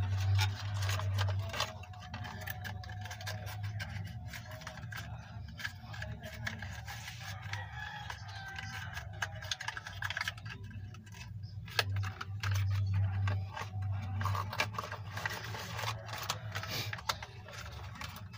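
Suzuki F6A three-cylinder engine running just after starting on a fresh set of spark plugs, a low uneven hum that swells and fades, with scattered clicks and rattles.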